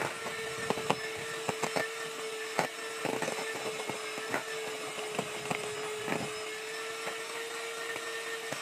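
Hand-held electric mixer running at a steady speed, its beaters whipping thick boiled icing (egg-white meringue) and knocking irregularly against the sides of a stainless steel bowl.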